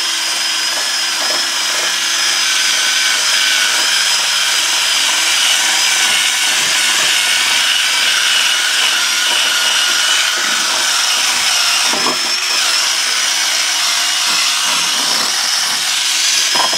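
Electric drill spinning a wire brush against an aluminium hatch frame, scrubbing off old silicone sealant residue. It gives a steady high whine over a rasping scrub, with a few sharp knocks near the end.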